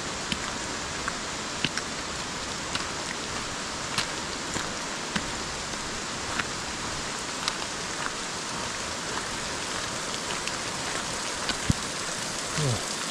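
Steady hiss of rain falling on wet forest, with scattered light ticks of drops landing close by and one sharper tap near the end.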